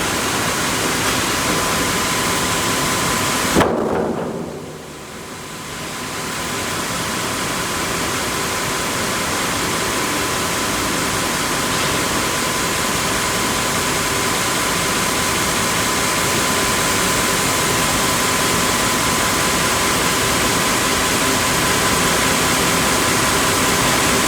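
Sawmill machinery of a tandem bandsaw line running: a steady, dense mechanical noise with a thin steady whine. A little under four seconds in, the noise drops sharply and then builds back up over about two seconds.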